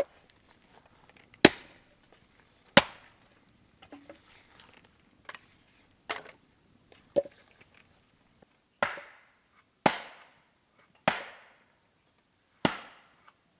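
Axe chopping wood: about nine sharp strikes, uneven at first, then a steady blow roughly every second near the end.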